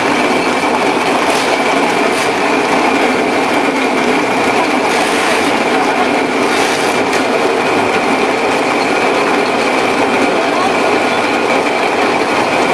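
Biscuit production line machinery and conveyor running steadily: a continuous mechanical rattle with a steady high-pitched whine, and a few brief clatters about a second in, two seconds in, and around five and seven seconds in.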